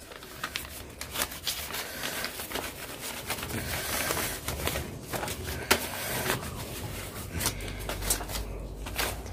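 Irregular scraping and rustling, with many short clicks, as a food ingredient is cleaned by hand before chopping.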